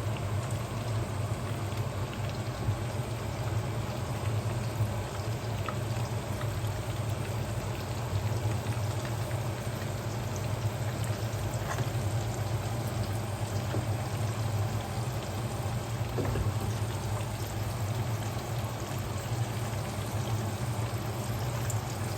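Chicken breast frying in a pan of oil: a steady, even sizzle with occasional faint pops, over a constant low hum.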